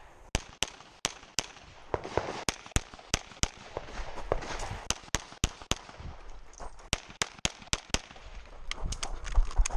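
A string of pistol shots fired rapidly, many in quick pairs with short gaps while the shooter moves between positions, as in a USPSA stage run.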